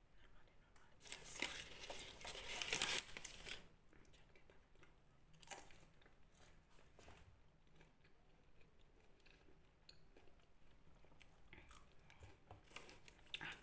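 A person biting and chewing fast food. A crunchy burst lasts about two and a half seconds shortly after the start, then quieter chewing follows.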